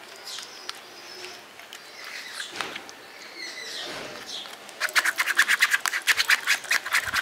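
Metal ladle scraping and pressing stone apple (bael) pulp against a plastic mesh strainer. It is faint at first, then turns into a fast back-and-forth scraping of about eight strokes a second over the last couple of seconds.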